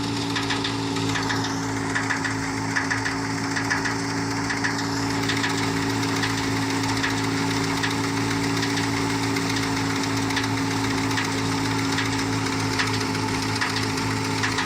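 Engine running steadily at a constant speed, with a fast, clicking rattle over its hum.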